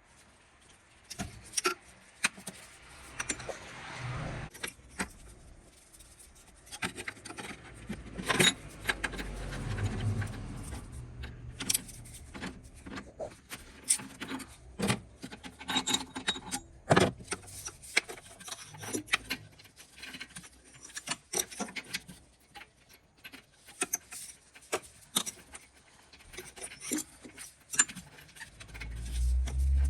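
Metal hand tools and parts clinking, knocking and scraping in irregular sharp clicks, typical of wrench and socket work during an oxygen sensor replacement.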